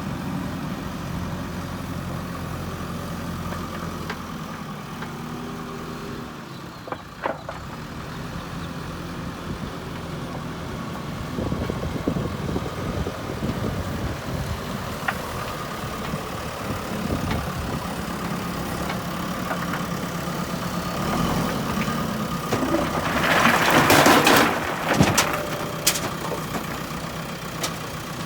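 JCB backhoe loader's diesel engine running steadily, working harder from about eleven seconds in. Near the end comes a loud burst of noise with sharp clicks, the loudest moment.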